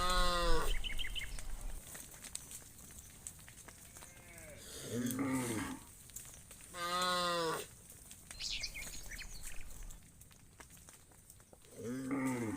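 Cattle mooing: four separate calls, one right at the start, one about five seconds in, one about seven seconds in and one near the end, the second and last deeper than the others.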